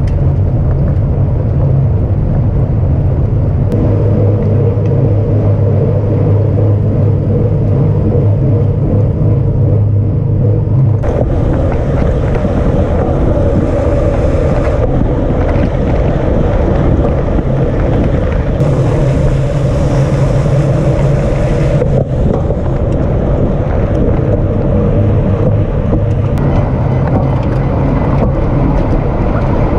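Wind rush and road rumble picked up by an action camera mounted on a racing bicycle at speed, with a steady low hum under it. The sound changes abruptly a few times as the shots cut.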